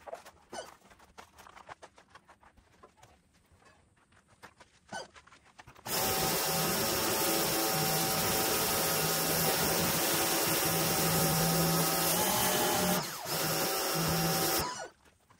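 Pressure washer starting suddenly and running for about nine seconds, a steady motor hum under the hiss of the spray, with a short dip near the end before it cuts off. Before it starts there are only small handling clicks.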